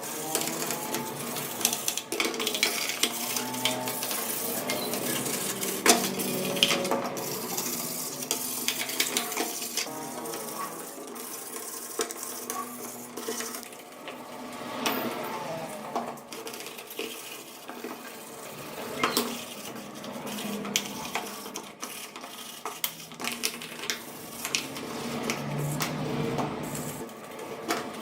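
Metal parts and hand tools clinking and knocking against each other, in irregular sharp clicks throughout.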